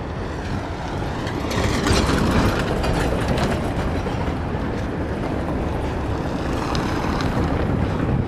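Outdoor street noise: a steady low rumble with wind on the microphone, swelling for a second or two about two seconds in.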